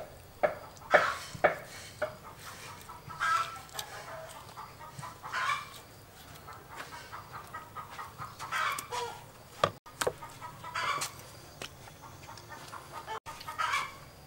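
Chickens clucking on and off in the background, a dozen or so short calls at irregular intervals.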